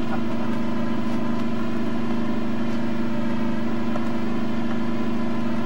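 Armoured mortar carrier's engine idling, a steady unchanging drone.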